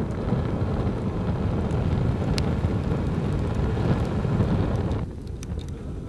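Wood fire burning in a steel campfire pit: a steady low rumble of flames with a few crackles, one sharp pop about two and a half seconds in. The upper hiss of the fire thins out about five seconds in.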